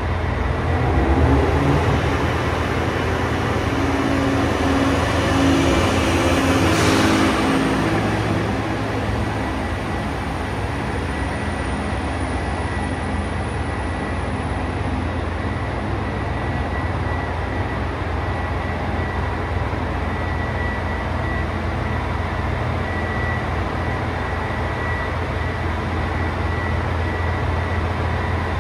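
JR Hokkaido H100 diesel-electric railcar pulling out and moving away, its diesel engine running with a faint rising electric whine as it gathers speed. A steady low hum remains after it has gone.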